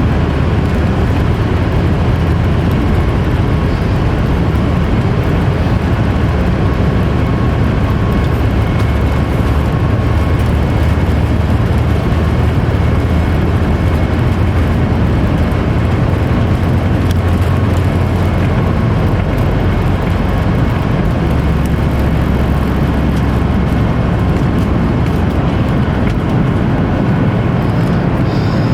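Steady in-flight cabin drone of a Boeing 737 MAX 8 airliner: its CFM LEAP-1B engines and the airflow over the fuselage, heard from a window seat, loud and unchanging with a faint steady whine.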